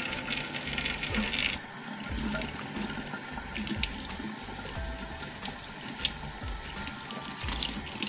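Kitchen faucet running, water splashing into a stainless steel sink and over a mesh coffee filter basket being rinsed under the stream. The hiss of the water changes about a second and a half in, as the flow falls differently.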